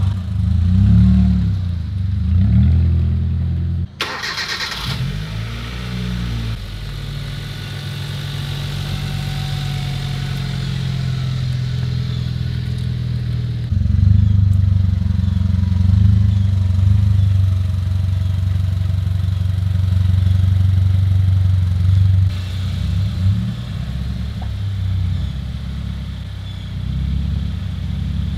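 Car engines running at low speed with a steady low rumble, the cars being moved about. The sound breaks off abruptly about 4 seconds in and changes again about 14 seconds in.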